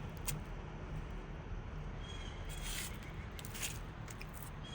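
Steady rush of a small creek running beside the trail, with a few footsteps and a short high whistle-like note about two seconds in.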